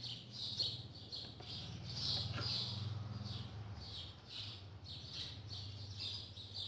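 Small birds chirping repeatedly, about two short chirps a second, over a low steady hum.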